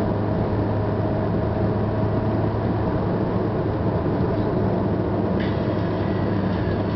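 Car cruising at highway speed, heard from inside the cabin: a steady engine hum under the rumble of tyres on the road.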